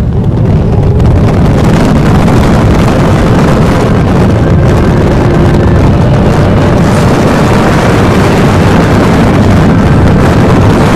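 Steady rush of wind buffeting the microphone of a camera mounted on a moving motorcycle, mixed with the bike's engine and road noise at cruising speed.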